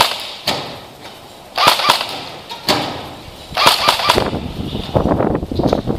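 Airsoft guns firing in short bursts of rapid, snapping shots, about five bursts roughly a second apart.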